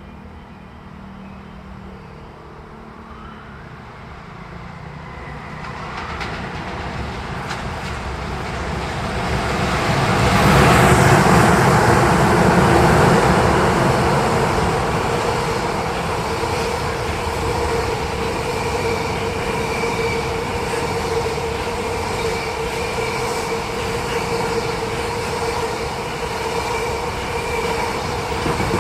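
A train approaching and running past on the rails, growing louder until about ten seconds in, then passing steadily with a rumble and a steady tone over it.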